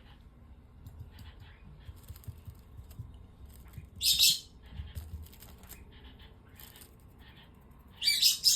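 Cockatiel giving two short, shrill squawks about four seconds apart, with faint light clicks of its feet pattering as it walks.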